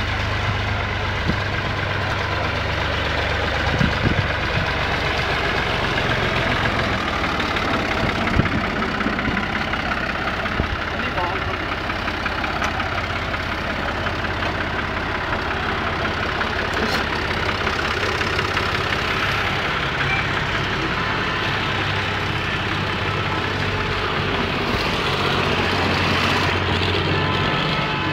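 Farm tractor engine running with a steady low drone.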